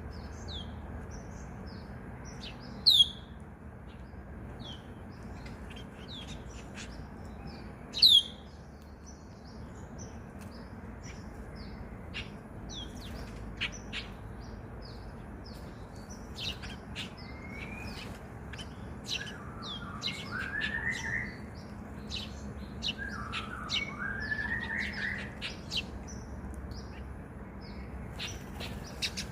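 Several small wild birds chirping and tweeting in quick short notes, with two loud, sharp sweeping calls about 3 and 8 seconds in, and lower warbling phrases in the second half, over a steady low background hiss.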